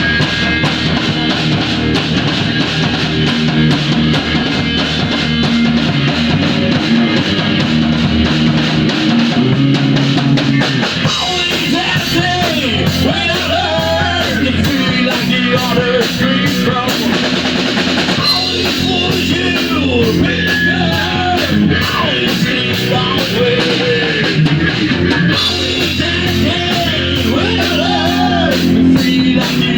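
Rock band playing live in rehearsal: distorted electric guitar, bass guitar and drum kit. A higher, wavering melodic line comes in about eleven seconds in over the steady drumming.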